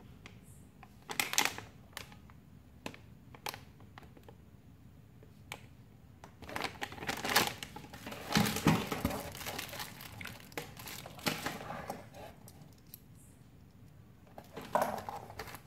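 Plastic packaging bags crinkling and rustling as they are handled in a cardboard box, in scattered bursts with small clicks, busiest in the middle.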